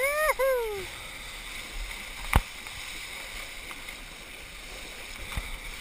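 Steady rush of water and wind as a kiteboard and the bodyboard it tows skim across the water, with a person's two-part "woo-hoo" near the start. A single sharp knock comes about two and a half seconds in.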